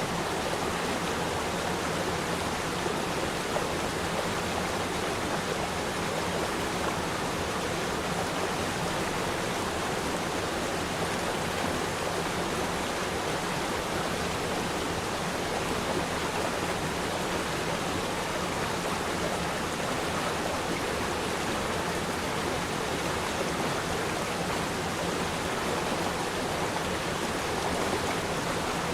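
Waterfall rushing steadily, a constant even roar of falling and splashing water.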